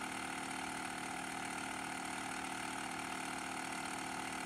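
2001 Pontiac Aztek GT's 3.4-litre V6 idling steadily after a cold start, with the rear air-suspension compressor running at the same time.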